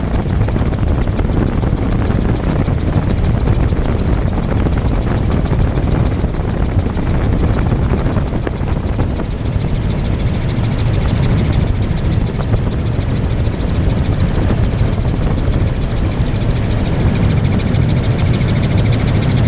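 Helicopter in flight: a loud, steady rotor and engine noise with a fast, even chop. A thin high whine joins near the end.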